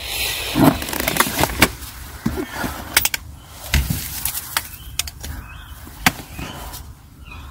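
Fishing tackle being handled close by: a landing net handle and pole knocking and clicking against each other and the umbrella pole, with rustling in between. The knocks are sharp and irregular, several a second at times.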